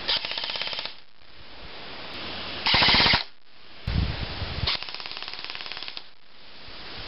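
Homemade airsoft gun firing in rapid full-auto bursts: three bursts of fast clicking, a short one at the start, a louder one about three seconds in, and a longer one from about four to six seconds.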